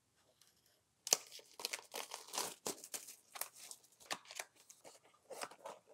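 Plastic shrink wrap on a hockey-card hobby box being torn open and peeled off, crinkling and crackling irregularly from about a second in.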